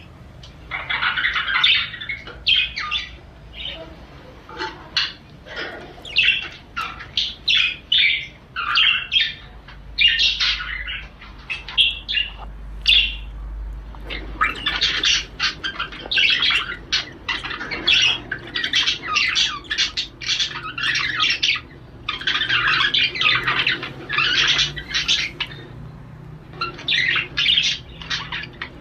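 Male budgerigar warbling and chattering in courtship: a fast, unbroken stream of chirps, clicks and squawks with a few short pauses.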